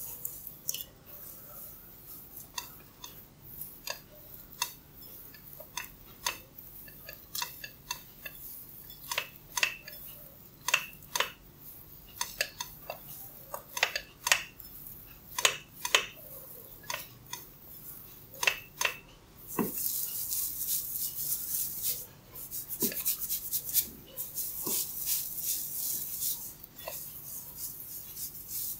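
Hair cracking: sharp, irregular cracks and snaps as strands of hair are gripped and pulled against the scalp. From about twenty seconds in, the snaps give way to a dense, continuous high crackling of hair, with short breaks.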